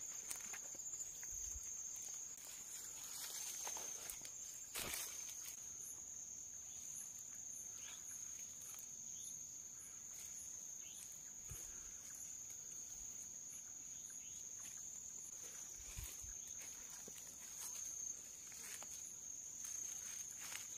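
Night insects chirring in a steady, faint, high-pitched drone, with soft rustling footsteps through undergrowth and a single click about five seconds in.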